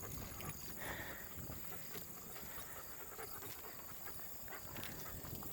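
Faint footsteps of a person and leashed dogs walking, a light, steady run of small ticks and steps.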